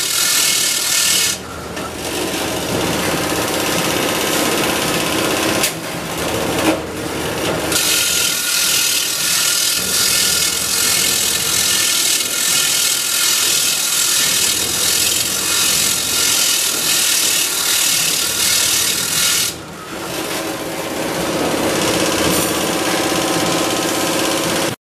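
Bench grinder wheel grinding the ends of a bundle of steel wire rods, a loud steady rasping hiss with sparks. It drops off briefly a few times as the bundle is eased off the wheel and pressed back on.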